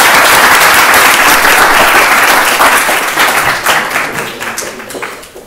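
Audience applauding: dense clapping at first that thins into scattered claps and dies away near the end.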